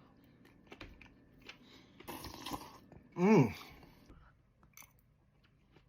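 A person eating: faint chewing with small mouth clicks, and a short 'mmm' of enjoyment about three seconds in, its pitch falling.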